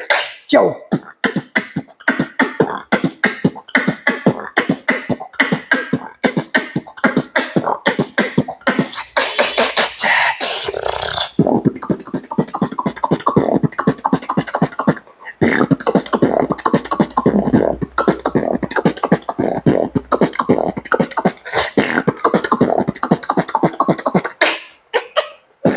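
Solo human beatboxing: rapid mouth-made kick, snare and hi-hat sounds laid over hummed vocal tones, with a brief break a little past the middle and a low sustained bass under the beat for several seconds after it.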